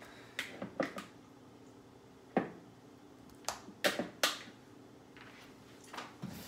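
A string of separate sharp knocks and taps on a wooden cutting board as raw salmon fillet pieces are handled and laid out on it, some knocks coming close together.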